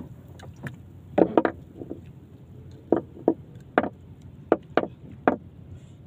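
Irregular short, sharp knocks, about eight of them, a quick cluster of three and then single ones, as a handline is paid out from a hand spool aboard a small boat.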